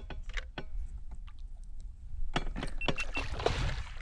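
Irregular sharp clicks and knocks of an action camera and its pole mount being handled and swivelled on a plastic fishing kayak, clustered at the start and again about two and a half seconds in. A few short high beeps sound about three seconds in.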